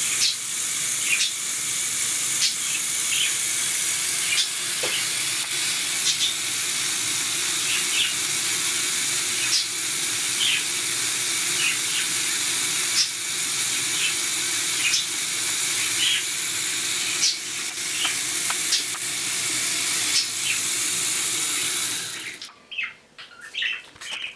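Lego Technic tracked robot's electric motors, gear trains and tracks running steadily with a hissing whir and a light click about once a second. The running stops about 22 seconds in, leaving a few faint knocks.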